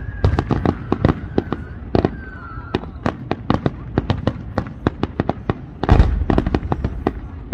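Fireworks display: a rapid run of aerial shell bursts, sharp bangs several a second, with a dense, loudest cluster about six seconds in.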